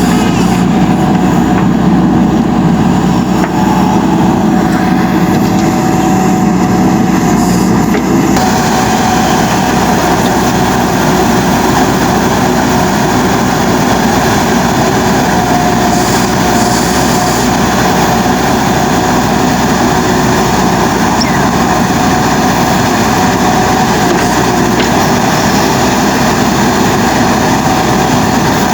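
JCB 3DX Super backhoe loader's diesel engine running steadily under working load; its note changes about eight seconds in.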